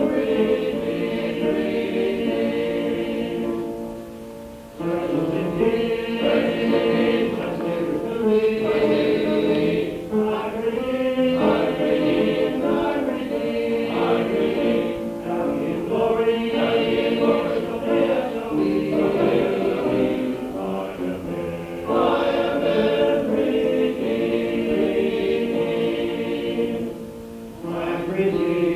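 Men's chorus singing in harmony, with short pauses between phrases about four seconds in and again near the end. Played back from an old cassette recording, so it sounds dull, with no highs above the voices.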